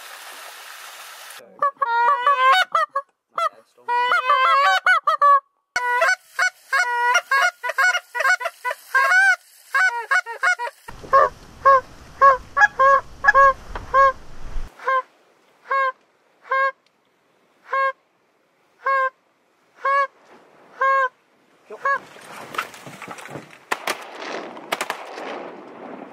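Goose honking: a fast string of honks and clucks, then single evenly spaced honks that slow down and stop about twenty seconds in. Near the end comes a rough rustling noise with two sharp clicks.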